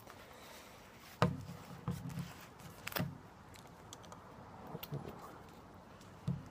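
A handful of light knocks and clicks, about five spread over several seconds, from a spice jar being handled and its cap opened.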